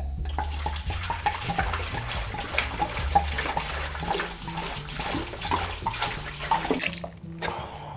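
Red wine poured from two bottles at once into a ceramic slow-cooker crock of liquid, orange slices and spices: a steady splashing pour that tails off about seven seconds in.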